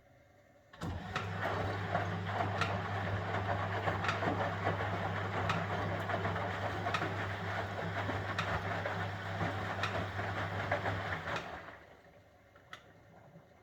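1971 Constructa Garant 491 washing machine's motor starting up and turning the drum through one wash stroke, with a steady low hum, tumbling washing inside and a light knock about every second and a half, once per turn of the drum. It runs about ten seconds, then the motor stops and the drum coasts to rest.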